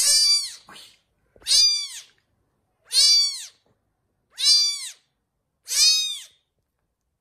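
Very young kitten meowing, five high-pitched cries that each rise and fall in pitch, spaced about a second and a half apart.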